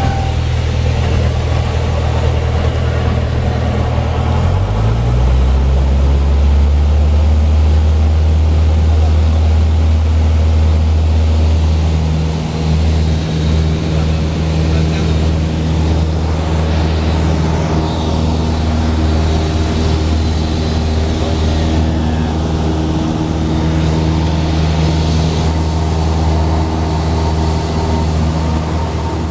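Cessna light aircraft's piston engine and propeller droning steadily, heard inside the cabin during a touch-and-go on the runway and the climb-out. The engine note shifts about four to five seconds in.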